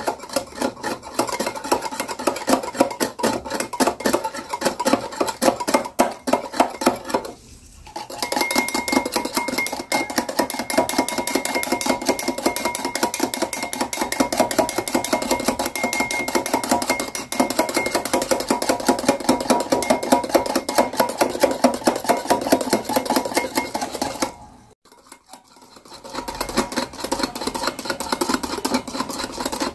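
Wire whisk beating coffee powder, sugar and water into a thick foam in a glass bowl, the metal tines clicking and scraping against the glass in quick, even strokes several times a second. The beating stops briefly about seven seconds in and again near the end.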